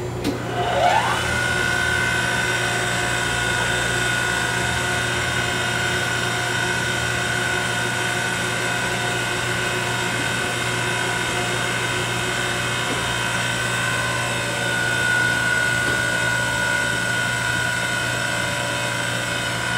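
Parker-Majestic universal cylindrical grinder's grinding-wheel spindle starting up. Its whine rises in pitch over about the first second, then settles into a steady high whine over a constant machine hum.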